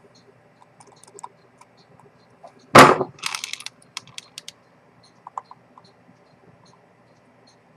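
Fine metal tools ticking and clicking against a vintage Rolex 6694 watch movement during servicing. A single sharp, loud knock comes about three seconds in, followed by a quick rattle of small clicks, then a few scattered faint ticks.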